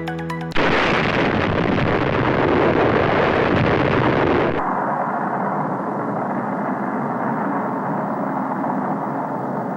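Waterfall's falling water, a steady rushing noise. About four and a half seconds in it turns abruptly duller and a little quieter, its high end cut off.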